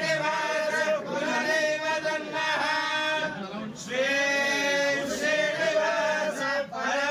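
Hindu priests chanting mantras, male voices in long phrases on held notes, with short breaks between phrases every second or two.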